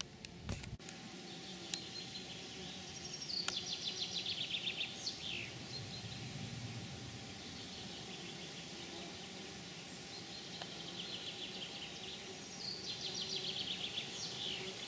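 A songbird sings the same short song twice, about ten seconds apart: a fast trill of repeated notes ending in a quick downward slur. There are a few sharp clicks at the very start over steady background noise.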